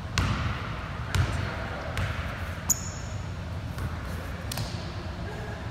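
A basketball bouncing on a hardwood gym floor several times, about a second apart, with the hall echoing each bounce. A brief high squeak comes about halfway through.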